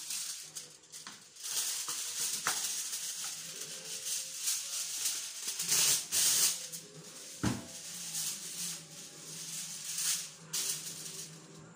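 Aluminium foil crinkling and rustling as a sheet is pulled from its box and handled, with a few sharper crackles.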